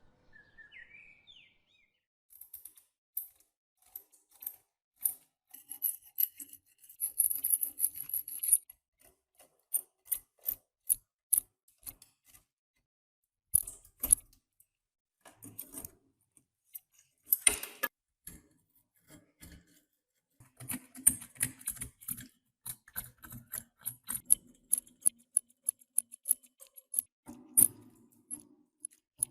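Irregular metallic clicking, clinking and rattling of rusty metal parts being handled and worked, with bursts of high jingling. A single bird chirp rises in pitch about a second in.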